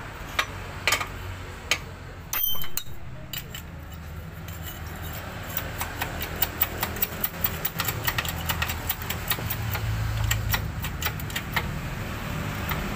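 Light metallic clicks and clinks as supercharger parts are handled and fitted on a hydraulic press. They come a few at a time at first, with a short louder clatter early on, then fast and close together from about halfway through, over a steady low hum.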